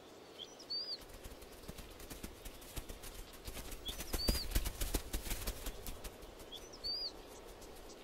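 Zebra hooves drumming on dry, dusty ground as a herd runs past, the knocks thickest in the middle. A small bird gives the same short high chirp three times.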